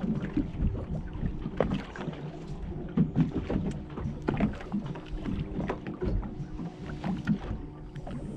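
Fishing boat's engine idling with a steady low hum, under a wash of water and wind noise, with irregular knocks and taps scattered through.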